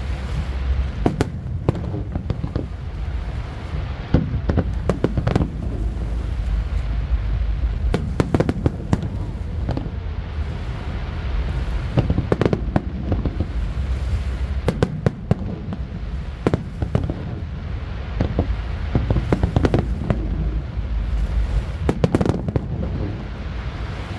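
Aerial fireworks display: a continuous barrage of shell bursts and crackling reports in quick, irregular succession over a steady low rumble.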